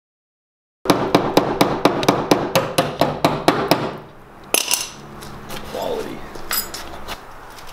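Hammer blows, about a dozen quick strikes at roughly four a second, then after a short pause one more single knock.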